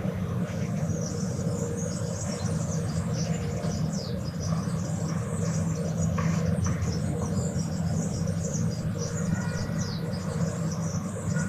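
City morning ambience: a steady low rumble of traffic under many birds chirping in quick, short calls.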